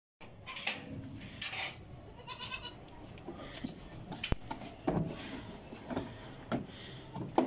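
Goats bleating in short, separate calls roughly once a second, one of them quavering about two and a half seconds in, with a sharp click about four seconds in.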